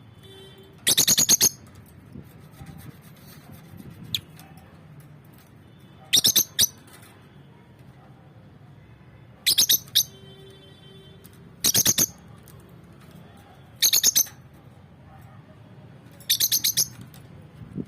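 A bird chirping in short, quick bursts of high-pitched notes, six bursts of about half a second each, coming every two to four seconds.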